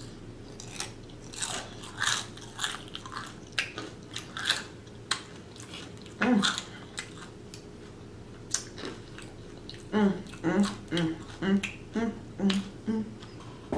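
Close-miked eating sounds: chewing, lip smacks and wet mouth clicks from a person eating orange chicken. About ten seconds in, a quick run of short hummed "mm" notes, about two a second.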